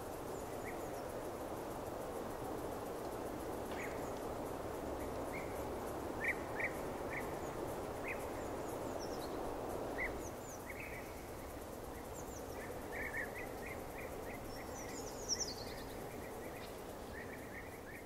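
Outdoor field ambience: small birds chirping now and then, with short calls coming more often in the second half, over a steady background hiss.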